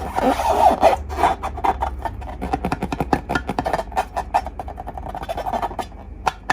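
Slime being squeezed and worked by hand: a rapid string of sticky clicks, pops and squelches.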